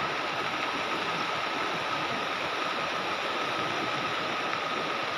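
River in peak flood: the steady, even rush of fast-flowing floodwater.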